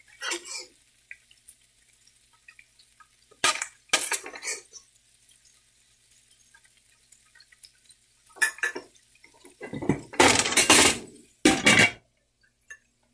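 A spatula scraping and knocking against a nonstick frying pan while stirring a thick masala, in short bouts with quiet gaps. The longest, loudest clatter comes near the end.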